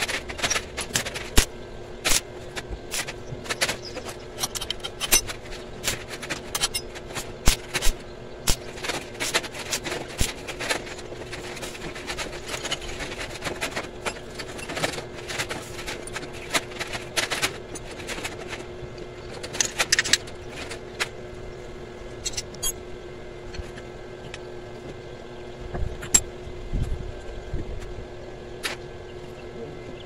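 Stick arc welding in short runs: irregular crackling and popping, dense through the first two-thirds and sparser near the end, over a steady hum.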